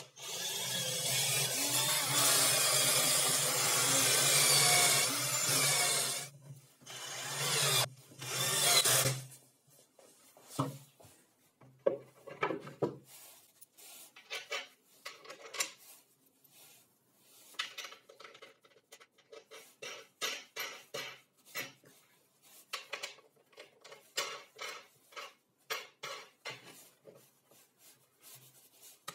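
Cordless drill driving a screw into plywood: the motor runs steadily for about six seconds, then two short bursts follow. After that come quieter clicks, knocks and rubbing as wooden parts and a bolt are fitted together by hand.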